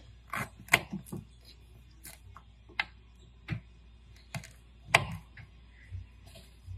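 Small kitchen knife chopping peeled ginger root into portions, making a dozen or so irregular sharp taps as the blade meets the cutting board.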